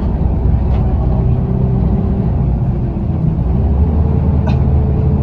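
TransJakarta city bus running, heard from inside the cabin: a steady low engine and road rumble with a faint whine that rises a little in pitch over halfway through. There is one short click about four and a half seconds in.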